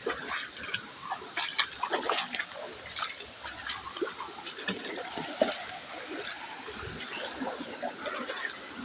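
Waterfall stream rushing steadily, with irregular splashes and knocks over it.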